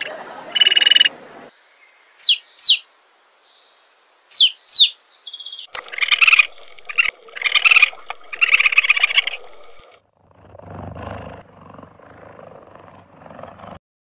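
A run of different animal calls one after another: short croaking bursts, then pairs of high falling whistles, a series of harsher repeated calls, and finally a quieter low grunting.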